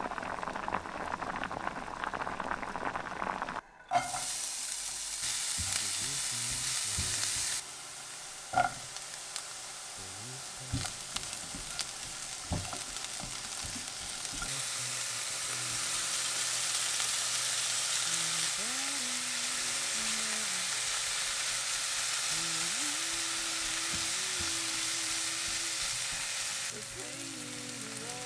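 Chopped mushrooms and bacon frying in a pan, a steady sizzle, with a few sharp knocks as a silicone spatula stirs them against the pan. The sizzle jumps abruptly in level several times.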